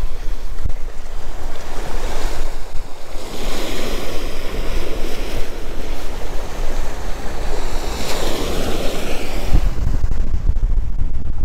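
Strong wind buffeting the microphone, a heavy rumble, over surf washing onto the beach; the wind rumble grows heavier near the end.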